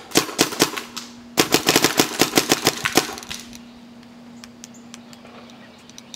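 Freeflow Matrix paintball marker firing. It fires a quick string of about five shots, pauses briefly, then fires a faster string of about a dozen shots. After that, a faint low steady hum and a few scattered faint clicks follow.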